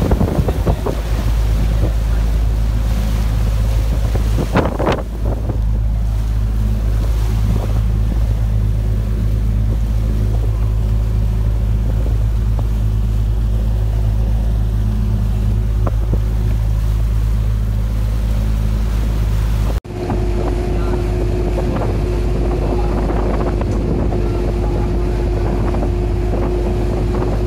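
Boat engine running steadily under way, with wind buffeting the microphone. About twenty seconds in the sound drops out for an instant and comes back as a steady engine hum with a clearer mid-pitched drone.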